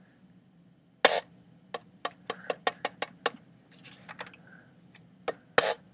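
Empty electronic paintball hopper (loader) switched on, its motor and drive cone running with a faint steady hum, under a series of sharp clicks and knocks from the plastic shell being handled, most of them bunched between about one and three and a half seconds in.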